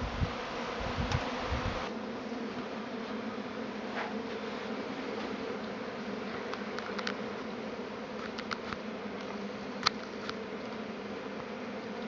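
A swarm of honeybees buzzing in a steady hum. A low rumble stops suddenly about two seconds in, and a few sharp ticks come later.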